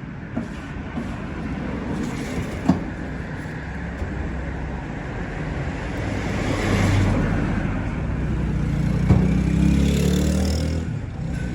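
Road traffic: a steady low rumble of vehicles, swelling louder as vehicles pass about six seconds in and again around nine to ten seconds, with a few single sharp knocks.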